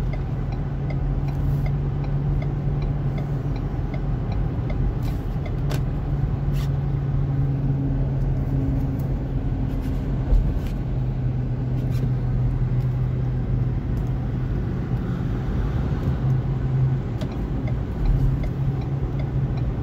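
Inside a car cruising on an expressway: steady tyre and road noise with a low engine hum. A light regular ticking sounds in the first few seconds, faint clicks recur throughout, and there is one short knock about halfway.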